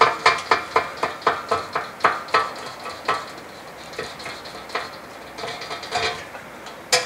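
Box knife sawing back and forth through a Teflon-impregnated rope seal: quick scraping strokes, about four a second, that thin out and fade after about three seconds, with a sharp click near the end.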